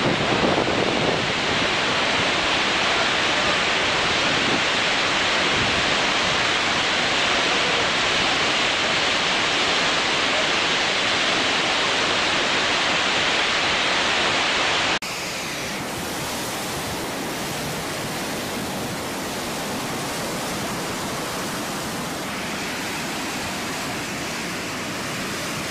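Steady rush of water discharging through a dam's spillway; about 15 s in it cuts abruptly to a quieter, steady rushing of a floodwater torrent.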